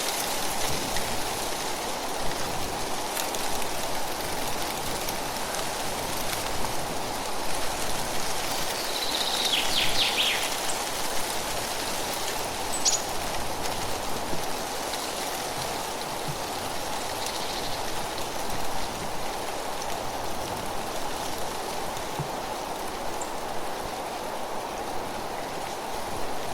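Steady rustle of tree leaves stirred by a gentle breeze. A short run of high chirps comes about nine seconds in, and another brief one a few seconds later.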